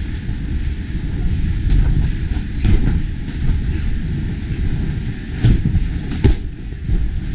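Wind buffeting the camera microphone, a steady low rumble, with a few short knocks, two of them close together around six seconds in.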